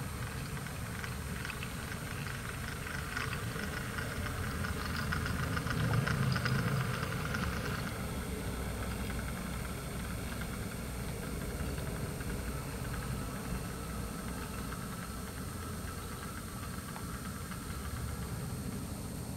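Model BR Class 08 diesel shunter and brake van running along the track, with a steady engine-like running sound. It is loudest about six seconds in, then fades a little as the train draws away.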